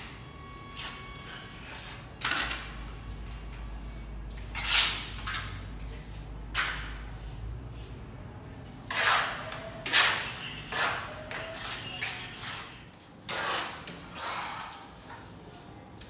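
Steel plastering trowel scraping and pressing wet cement mortar onto the concrete edge of a staircase: a series of short, rough scrapes at irregular intervals, with a faint low hum in the first half.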